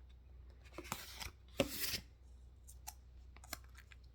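Close-miked eating sounds, a person's mouth slurping and biting into food: two short noisy bursts about one and one and a half seconds in, then a few small clicks.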